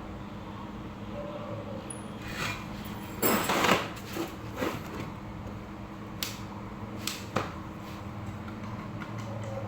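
A short scraping clatter about three seconds in, followed by several sharp knocks, as of tools or parts being handled during a workshop build, over a steady low hum.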